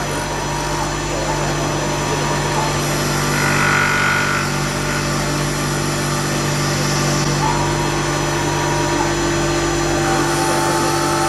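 EagleTec EA-T6015A automatic CNC wood lathe running steadily and humming while it turns a turkey locator call mouthpiece. Short pitched whines rise over the hum about four seconds in, again around seven to nine seconds, and from about ten seconds.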